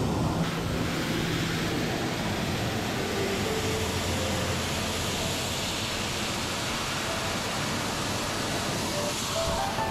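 Steady rushing noise of a moving vehicle.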